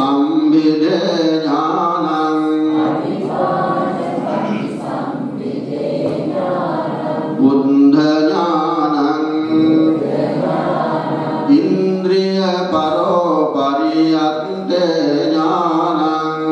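Buddhist devotional chanting by voices in unison, with long held notes that rise and fall slowly.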